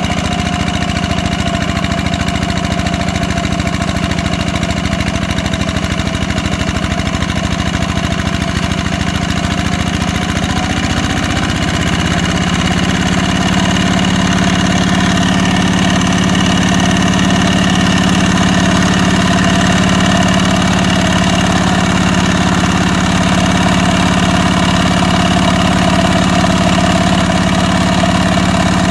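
Two-wheel hand tractor's engine running steadily as the tractor churns through a flooded rice paddy on steel mud wheels; about twelve seconds in its note settles lower and steadier and gets slightly louder.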